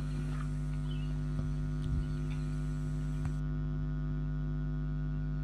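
A steady low hum made of several fixed tones, unchanging throughout, with a couple of faint clicks.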